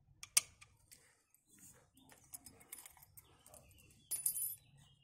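Faint small metallic clicks and clinks as a nut and the steel transport-safety wire are handled and slid out of the eye of a new gas shock absorber, with a sharper click just under half a second in and a short clatter about four seconds in.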